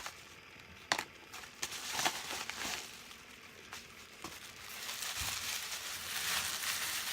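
A mail package being handled and opened: a few sharp clicks and knocks in the first seconds, then crinkling and rustling of the wrapping that grows louder from about halfway through.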